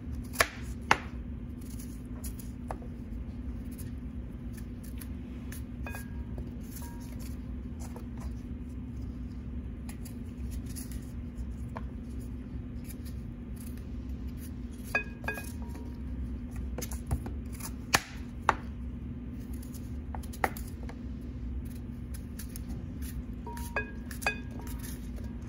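Knife peeling and cutting an apple by hand: scattered sharp clicks and taps of the knife and apple on a plastic cutting board, a few with a short ringing clink, over a steady low hum.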